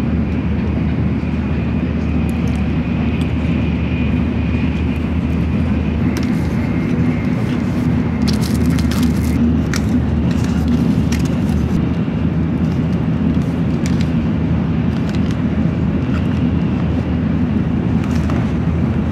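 Steady low rumble of a Shinkansen bullet train's passenger cabin while running, with a faint high tone that stops about halfway. A few light clicks and taps come from a plastic bento box being handled.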